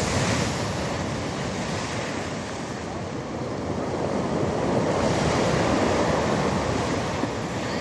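Heavy storm surf breaking and washing on a stony beach, a steady rush that swells with a bigger wave about five seconds in.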